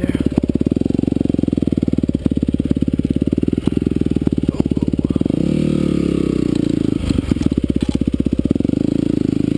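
Yamaha WR250F single-cylinder four-stroke dirt bike engine chugging at low speed on a tight trail. There is a short rev up and back down about halfway through, and a few knocks along the way.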